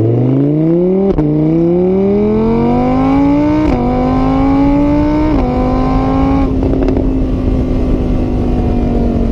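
An engine accelerating through the gears. Its pitch rises, drops sharply at each of three shifts, then holds steady at a constant speed for the last few seconds.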